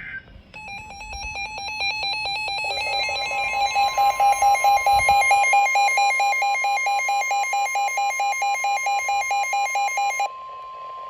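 Emergency Alert System weather warning alarm: a rapidly pulsing electronic beep starts under a second in. About three seconds in, a steady high tone joins it, the NOAA Weather Radio 1050 Hz warning alarm. The beeping stops near the end and the steady tone carries on alone for a moment.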